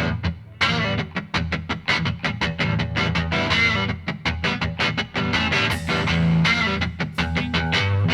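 Background music: guitar over a fast, steady beat.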